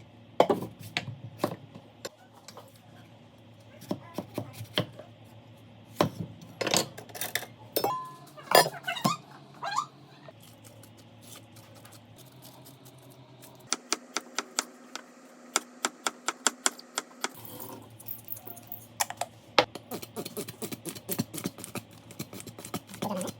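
Kitchen prep sounds across several short clips: knife strokes on a cutting board, including a run of quick, even chops about four a second in the middle, and utensils clinking against dishes, some with a brief ring.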